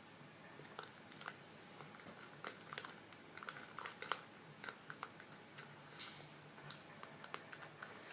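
Homemade soap-and-toothpaste slime being stirred in a container: faint, irregular sticky clicks and squelches.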